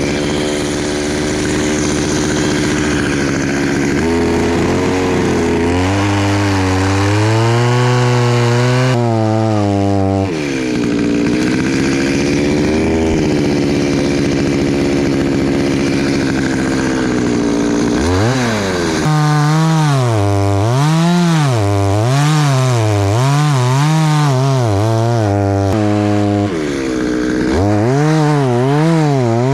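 Petrol chainsaw running at high revs while cutting pine, its pitch sagging and recovering as the chain bites into the wood. In the last third it revs up and down in quick repeated surges.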